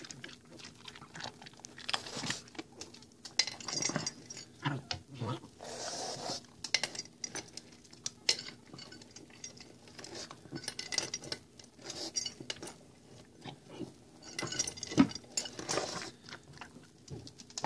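A pug eating dry kibble fast from its bowl: irregular crunching and chewing, with the bowl clinking and scraping as the dog noses into it.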